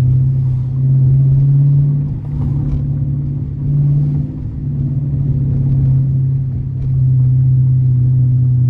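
Dodge R/T's V8 engine and exhaust running while driving: a steady low drone that dips briefly three times.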